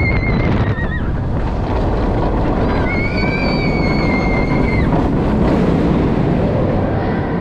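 Intamin inverted roller coaster train running through its last elements, with heavy wind rush over the microphone and rumble from the track. Two high-pitched held tones sound over it, about a second at the start and about two seconds near the middle.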